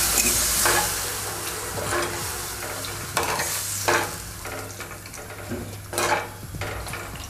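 Steel ladle stirring and scraping through rabodi curry in a black kadhai, over a sizzling hiss from the freshly added water on the hot masala that dies down over several seconds. Scrapes come about once a second, the loudest about six seconds in.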